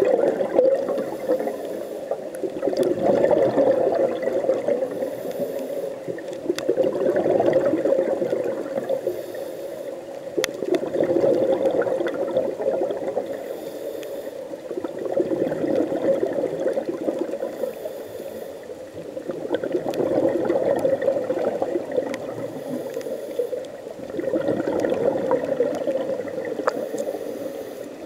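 A scuba diver's regulator breathing underwater, heard through the camera housing: bubbly exhalations that swell and fade in a slow rhythm of about one breath every four to five seconds, with a faint hiss of each inhale between them.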